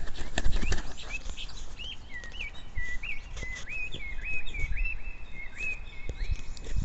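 A bird chirping: a string of short, high whistled notes, many hooking up or down, repeated about every half second, over a low outdoor rumble.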